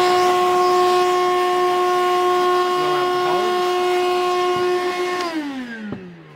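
Milwaukee M18 cordless vacuum running in blow mode, a loud steady motor whine, blowing dust out of drilled dowel holes in stone through its hose. About five seconds in it is switched off and the whine winds down, falling in pitch.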